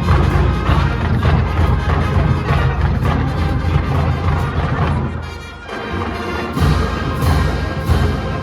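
Marching band playing live, with brass and drums. The band drops back briefly a little past halfway, then comes back in with steady drum strokes.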